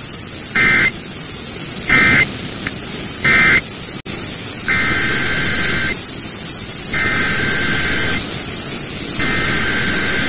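Emergency Alert System SAME digital data bursts over radio static, heard as warbling buzzes: three short end-of-message bursts, then three longer, roughly one-second header bursts that open the next tornado warning.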